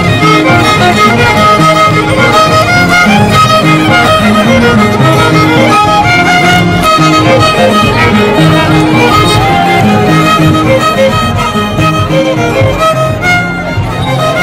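Andean harp and violin playing a traditional dance tune together, the violin carrying the melody over the harp's plucked bass notes.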